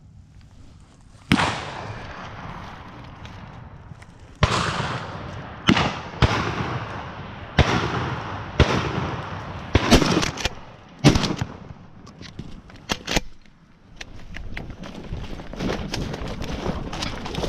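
Shotgun blasts during a deer drive: about ten shots over roughly twelve seconds, irregularly spaced with a couple in quick pairs, several trailing off in a rolling echo. A steadier noise takes over near the end.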